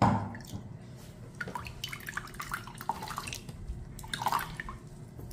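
Wet blended Bermuda grass pulp squelching as it is pressed by hand in a wire-mesh strainer, with the juice dripping into a glass bowl below in small irregular drips. A sudden knock sounds at the very start.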